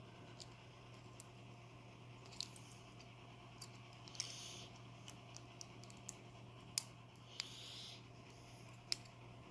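Faint, scattered small clicks and two short scrapes of a metal shim and tools being handled and worked into a padlock, over a steady low hum.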